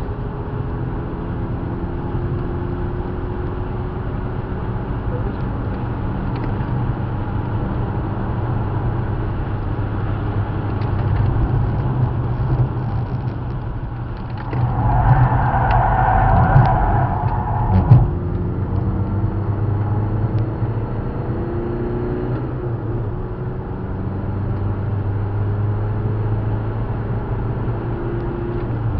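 Car engine heard from inside the cabin while driven on a race circuit, its pitch rising and falling with throttle and gear changes. About halfway through there is a louder, noisier stretch lasting a few seconds, ending in a sharp knock.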